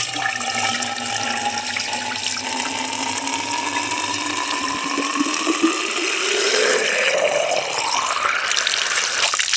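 Water from a garden hose pouring into the priming port of a semi-trash water pump's casing to prime it, the pitch of the fill rising steadily as the casing fills up.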